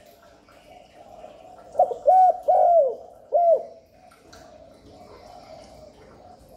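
Spotted dove cooing: a short phrase of four quick coo notes, about two seconds in.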